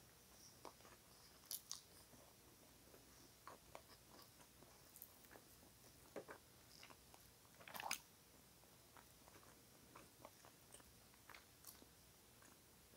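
Faint chewing and mouth sounds of someone eating rotisserie chicken, with scattered soft clicks and smacks and a louder crackle about eight seconds in.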